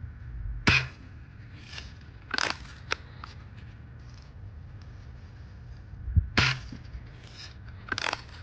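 Daisy Model 105 Buck lever-action BB rifle being fired and cycled: two sharp spring-air shots about six seconds apart, each followed by the clacks and clicks of the lever being worked to cock it.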